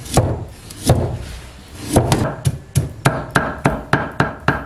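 Cleaver chopping a carrot on a thick round wooden chopping block: two separate chops, then from about two seconds in a steady run of about ten quick chops, nearly four a second.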